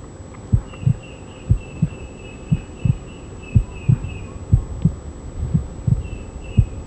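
Heartbeat-like double thump, lub-dub, repeating evenly about once a second as a soundtrack effect. A faint high warbling tone runs over it from about a second in to past four seconds, and again briefly near the end.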